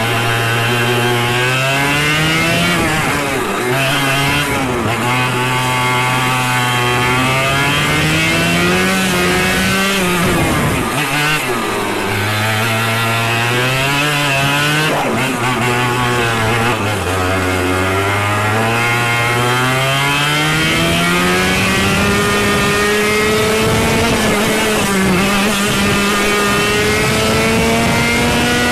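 Racing kart engine revving hard and easing off again and again, its pitch climbing on the throttle and dropping away about every few seconds, twice sharply, then one long climb held high near the end.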